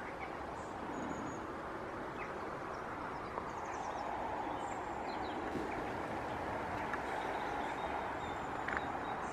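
Steady outdoor background rush with a few faint, short bird chirps over it.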